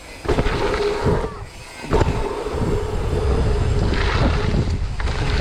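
Dirt jump bike rolling over the pump track with a steady buzz, and strong wind buffeting the microphone. A sharp thud about two seconds in, just after a brief lull, fits a landing off a jump.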